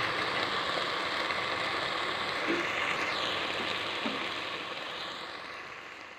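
Stir-fried fiddlehead fern, okra and mustard greens sizzling in a pot, a steady hiss that fades out near the end.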